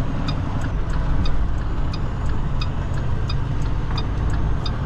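Semi-truck diesel engine running at low speed, heard from inside the cab as a steady low rumble. A light, even ticking about three times a second runs alongside it, the turn signal flashing as the truck turns.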